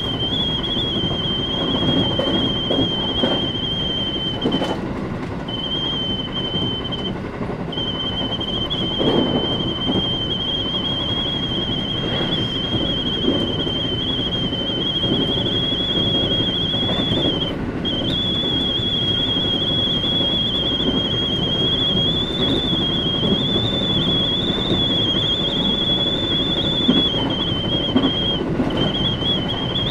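JR West Yamatoji Rapid train running between stations, heard from inside the carriage: a steady running rumble from the wheels and track. Over it sits a high whistling tone that wavers slightly and cuts out briefly a few times.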